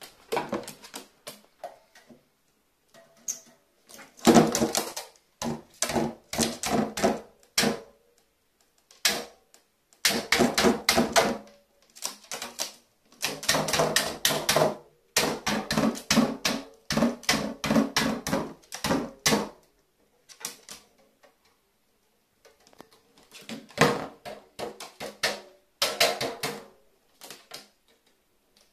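Carrion crow pecking hard at an aluminium spray can with its beak, in rapid runs of sharp metallic knocks lasting a few seconds each with short pauses between, the can rattling against the metal sheet under it.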